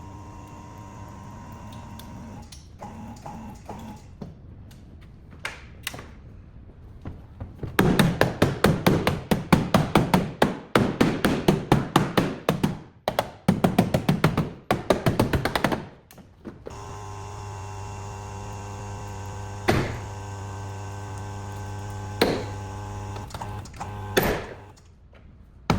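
Rapid hammer blows, several a second for about eight seconds in the middle, with a steady machine hum before and after and a few single knocks near the end.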